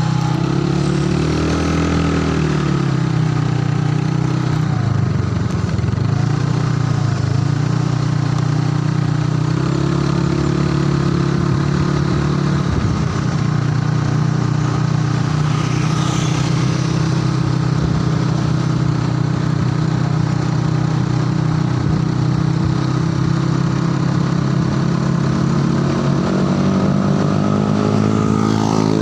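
Motorcycle engine running while riding behind a bus in traffic: a steady engine drone that dips and rises with the throttle and climbs in pitch near the end.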